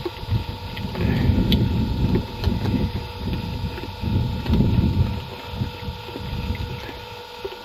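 Wind buffeting the microphone: an uneven low rumble that swells and fades, strongest in the middle.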